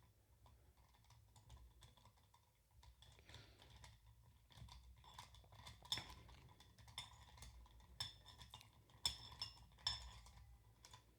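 Faint, irregular clicks and light knocks of a SmallRig clamp head being turned by hand onto a quarter-inch threaded stud, sparse at first and more frequent in the second half.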